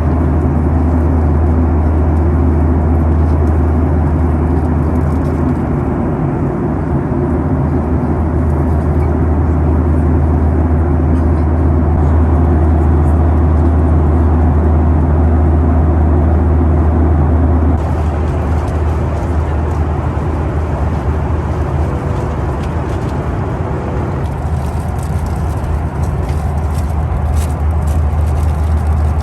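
Steady in-flight cabin noise of a Boeing 737-800: the drone of its CFM56 engines and the rush of air past the fuselage. About two-thirds of the way through the low drone eases a little, and a few faint clicks are heard near the end.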